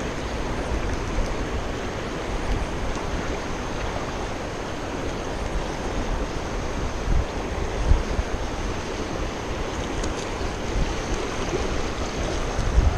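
Shallow river running over stones, a steady rushing. Wind buffets the microphone in a few brief low gusts, about seven seconds in and again near the end.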